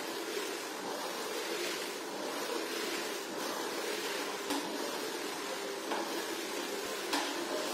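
Single-disc rotary floor scrubber running steadily, its brush scrubbing shampoo foam into a wet rug, with three brief clicks in the second half.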